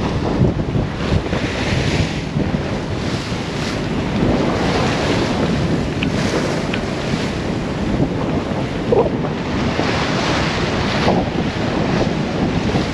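Wind and breaking sea heard aboard a sailing yacht in a heavy, confused swell, with gusts buffeting the microphone. A short squeak comes about nine seconds in.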